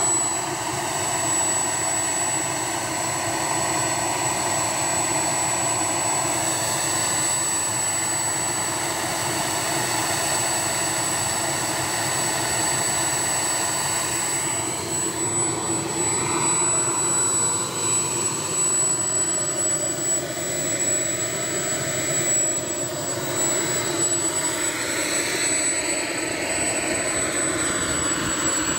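Steady jet engine noise: a loud, even rush with a constant high-pitched whine. Its tone shifts slowly up and down in the second half.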